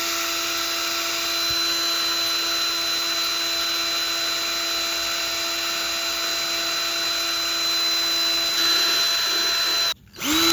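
Cordless drill running steadily at full speed, its bit grinding into an iPhone, with a steady whine over the grinding. It cuts off abruptly near the end, then gives one short spin-up and spin-down on the trigger.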